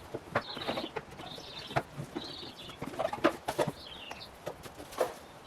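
Cardboard box and plastic wrapping being handled and opened, with irregular rustles, crinkles and small clicks.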